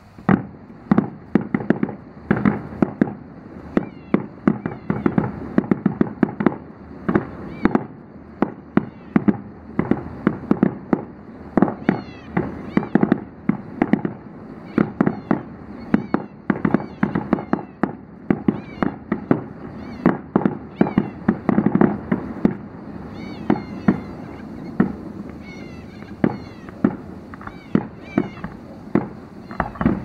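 Fireworks display going off about a mile away: a dense, continuous barrage of bangs and crackles, several a second.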